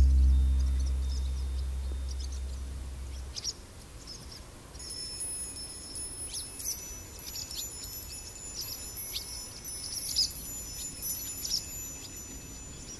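A deep, low tone is struck at the start and fades away over about three seconds. Then high chime tones ring on and overlap, with birds chirping.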